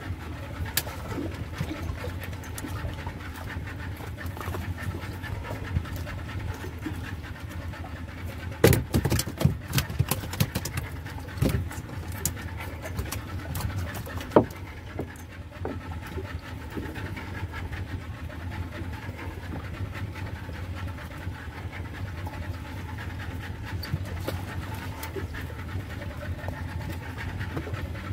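Fishing boat's engine running steadily, a low even pulsing hum, with a few sharp knocks about a third of the way in and again around the middle as the hand line is worked over the side.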